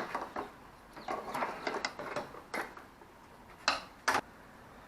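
Metal hand tool clicking and clinking on a brake line fitting at the ABS pump as it is worked loose, with two sharper metallic knocks near the end.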